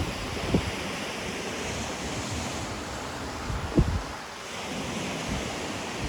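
Ocean surf washing on the shore in a steady hiss that swells and eases, with wind buffeting the microphone in short low thumps, the loudest nearly four seconds in.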